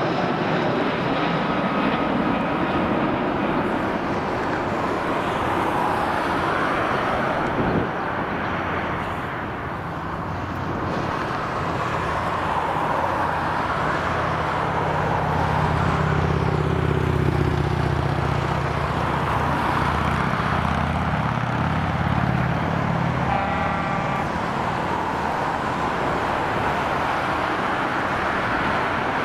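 Airbus A320-214's twin CFM56 turbofan engines running on final approach and landing, a steady jet noise with no break. After touchdown, about halfway through, a deeper engine drone swells for several seconds during the rollout, typical of reverse thrust being applied to slow the aircraft.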